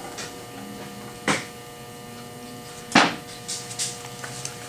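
Metal knocks from hand work on an aluminium CNC router frame: two sharp knocks about a second and three seconds in, then a few lighter clicks, over a steady electrical hum.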